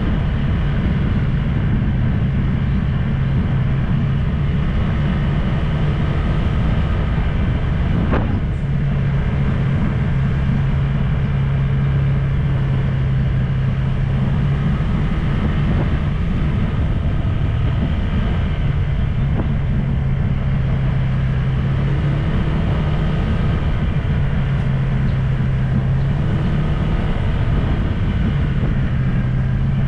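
A vehicle's engine running steadily under way, heard from on board, with a low drone throughout; about eight seconds in it dips briefly and then carries on.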